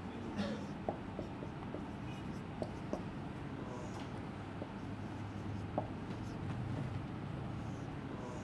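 Marker writing on a whiteboard: short scratches and light taps as lines and letters are drawn.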